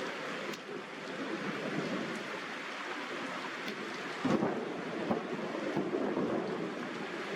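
Steady rain falling, with a short low thump about four seconds in and a few smaller knocks after it.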